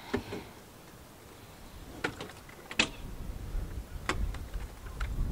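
Clicks and knocks from a tractor's cab door and fittings as someone climbs into the cab of a Massey Ferguson 6S.165; the sharpest click comes a little before halfway. A low rumble builds over the last couple of seconds.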